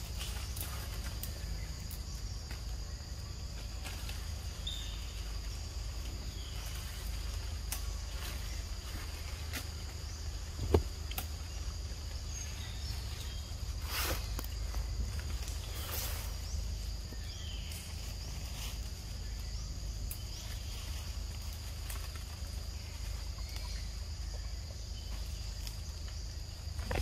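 Steady high insect drone over a low rumble, with scattered soft clicks and rustles as macaques bite and handle ripe fruit among leaves. One sharper click comes about eleven seconds in.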